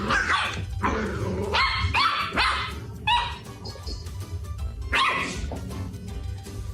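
A dog barking in a string of short barks, most of them in the first three seconds and one more about five seconds in, over background music.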